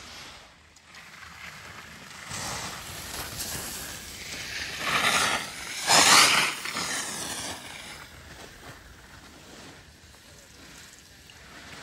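Skis scraping and hissing across groomed snow as a telemark skier turns past close by. The hiss builds, swells loudest in two turns about a second apart near the middle, then fades as the skier moves off.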